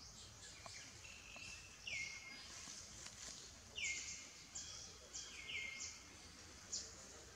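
Infant pig-tailed macaque crying: a series of short, high-pitched squeals, each sliding down in pitch and then briefly holding, about six in all, the loudest near the middle.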